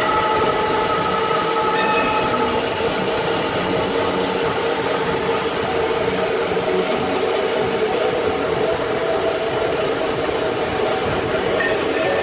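Automatic band saw cutting machine for cotton rolls running steadily: a continuous mechanical hum with several held whining tones.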